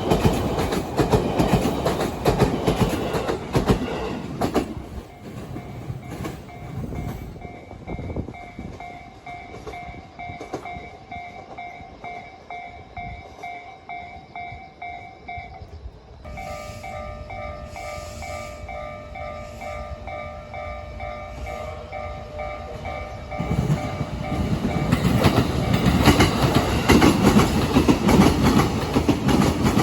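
A freight train clatters loudly over rail joints as it passes, dying away after about five seconds. A level crossing alarm then rings in a steady repeating pattern that changes its tones about halfway. Near the end another train comes through, loud again with the banging of the rail joints.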